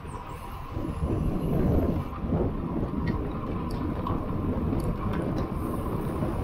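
Wind rushing over the microphone of a bike-mounted action camera, with the low rumble of road-bike tyres on asphalt. It grows louder about a second in.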